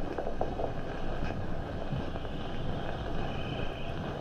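Steady hiss and rumble from the worn soundtrack of a late-1950s black-and-white film, with no clear sound event standing out.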